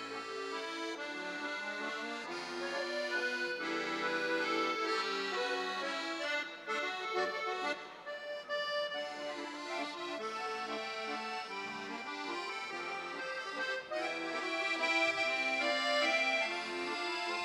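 Three piano accordions playing together as a trio: a melody over sustained chords, with separate low bass notes coming and going. The music thins out and softens briefly about seven seconds in, then fills out again.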